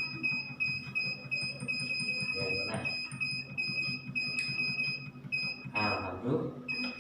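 Electric 'dolphin' reflexology massager running against the body: a steady high-pitched whine over a low buzzing hum, with a brief murmur of voices about three seconds in and again near the end.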